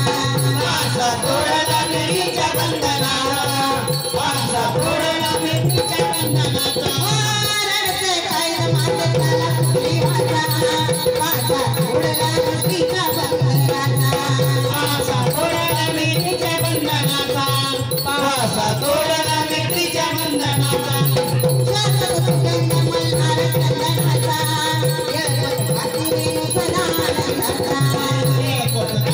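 Marathi devotional jagran folk music: a steady drum beat under a melody, with jingling, rattling percussion throughout.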